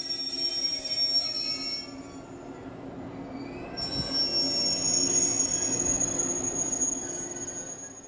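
Shinano Railway 'Rokumon' 115-series electric train drawing to a stop at a platform, its wheels and brakes giving a steady high-pitched squeal over a low hum from the train. The sound grows fainter and fades away near the end.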